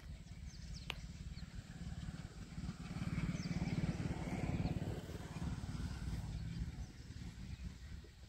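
Distant WDG-3A diesel locomotive's 16-cylinder ALCO engine rumbling as it accelerates a train away from a station, swelling about three seconds in and easing off again.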